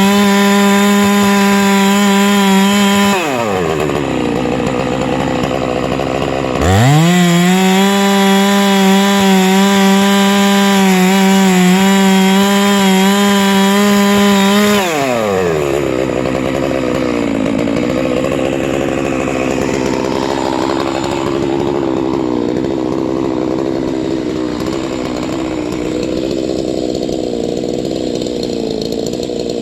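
Huztl MS660 clone two-stroke chainsaw running a milling pass at full throttle, dropping off the throttle about three seconds in, revving back up a few seconds later, then falling to a steady idle about halfway through as the pass is finished.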